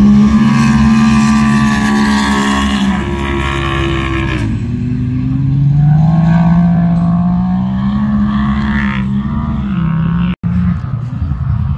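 Turbocharged side-by-side UTV engines at racing revs on ice. One engine holds a high pitch, then drops away about four seconds in, and another climbs steadily and falls off near the end as the machines pass.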